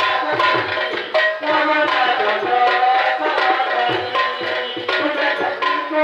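Devotional nama-kirtan music: a hand drum plays a quick, regular rhythm, some of its deep strokes sliding down in pitch, over sustained melodic accompaniment.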